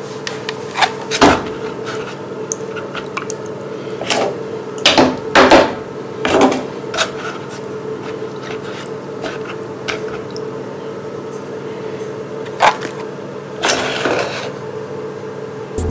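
Water sloshing and splashing in a plastic cup as fingers stir earthworms to rinse the soil off them, with scattered knocks of the cup and a steady hum beneath.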